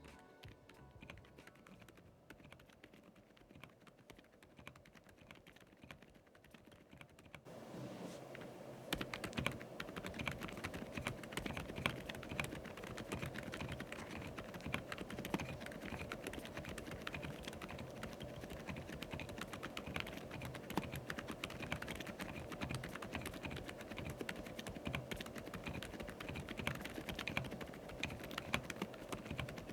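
Fast typing on a mechanical keyboard fitted with Akko Fairy silent linear switches, whose thick silicone-dampened stems give muted keystrokes. The keystrokes are quieter at first and become clearly louder about seven seconds in.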